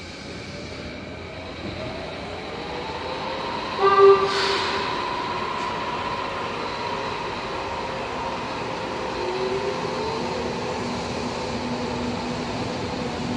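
Kyoto Municipal Subway 10 series train pulling out of the station: its electric motors whine, rising in pitch as it gathers speed, with a short horn blast about four seconds in, the loudest sound. The train then rolls past.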